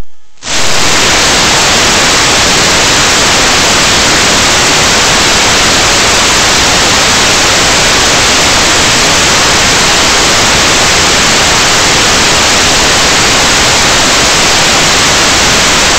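Loud, steady static hiss from an analog 5.8 GHz FPV video receiver's audio output, starting about half a second in after a brief dropout.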